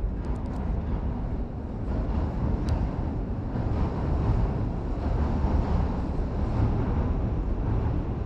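A steady low outdoor rumble with a soft hiss over it, swelling slightly in the middle, and a few faint ticks near the start.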